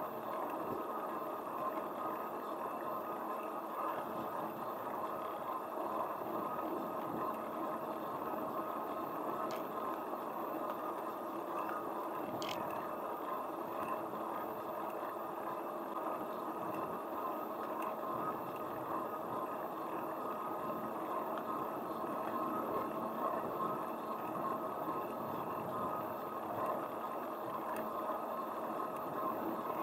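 Steady rolling noise of wheels on asphalt during a ride along a paved street, with a couple of faint clicks.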